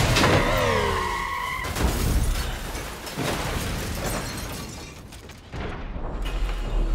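A car crash: an SUV sliding on its side with metal scraping the road and a falling screech, then heavy impacts and an explosion about two to three seconds in, under film score music that swells near the end.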